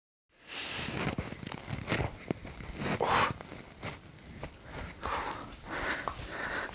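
Faint rustling and shuffling of a person moving about, with small irregular clicks, starting after about half a second of dead silence.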